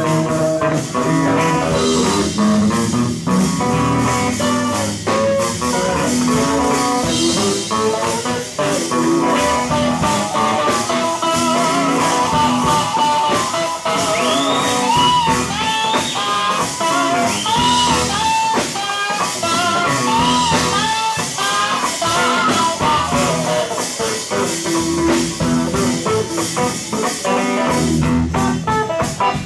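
Live sacred steel gospel music: a steel guitar plays sliding, arching high notes over a band.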